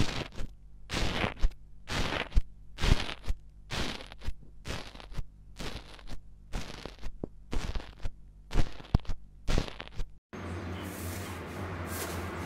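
A blunt plastic tool pressed again and again into a pan of foamy slime, each press giving a short, crisp crackle, about two a second. About ten seconds in this cuts off and gives way to a steady low hum and hiss.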